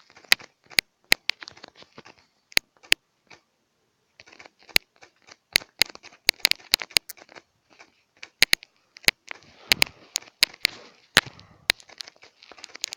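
Irregular sharp taps of typing on a phone's touchscreen keyboard, some single and some in quick runs, with short pauses between.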